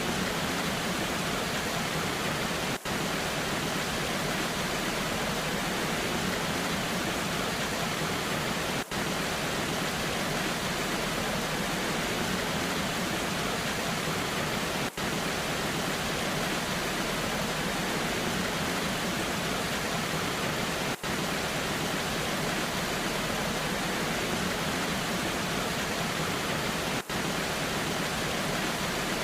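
Waterfall in the rain: a steady, even rush of falling water, with a short dip in level about every six seconds.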